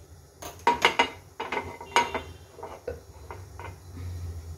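Metal appe (paniyaram) pan clanking against the gas stove's pan supports as it is set on the burner: several sharp, ringing knocks in the first two seconds, then lighter taps.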